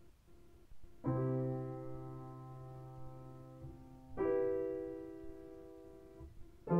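Slow, soft piano music: a sustained chord struck about a second in and left to ring and fade, a second chord about four seconds in, and a third just at the end.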